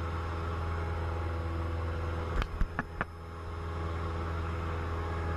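Cessna 172 Skyhawk's piston engine and propeller droning steadily inside the cabin at climb power just after takeoff, with a few short clicks about halfway through.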